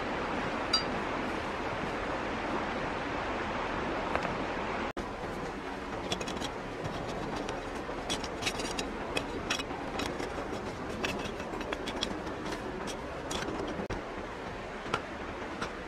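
Metal hand blade digging and scraping into dry, stony soil: irregular scrapes and clinks, coming thick and fast after about five seconds.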